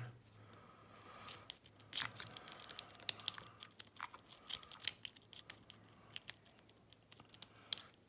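A lock pick working inside a brass Yale padlock: irregular small metallic clicks and light scraping as the pins are picked. A sharper click comes near the end as the lock opens.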